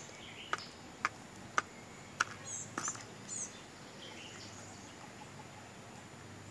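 A hen pecking crushed eggshells in a plastic tub: four sharp taps about half a second apart, then the pecking stops. A few short, high chirps from a small bird follow in the background.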